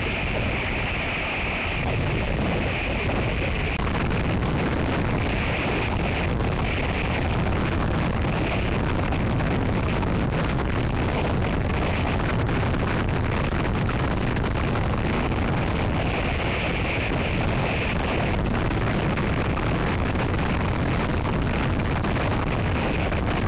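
Gusty wind buffeting an outdoor microphone: a steady, heavy rush of noise with a deep low-end rumble and no pauses.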